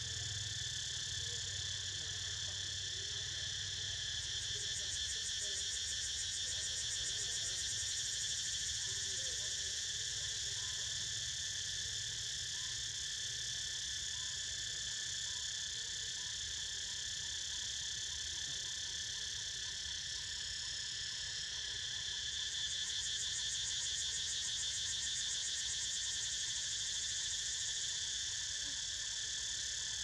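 Cicadas droning in a steady, high chorus. A faster pulsing buzz joins in higher up twice, from about four to nine seconds in and again from about twenty-two seconds in.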